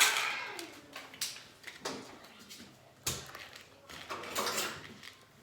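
Kitchen handling sounds: a few separate knocks and clinks of cutlery and dishes, as a spoon is fetched, with faint voices in the background.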